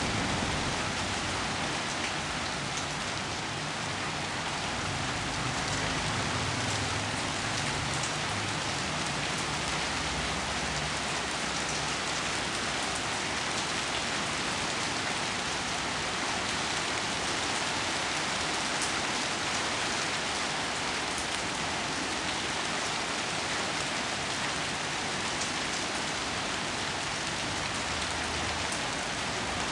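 Steady rain falling, an even hiss of drops with scattered individual drop ticks.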